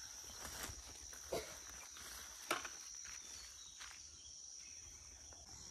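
Faint, steady high-pitched trill of crickets. A few soft crackling footsteps on dry leaves fall in the first four seconds.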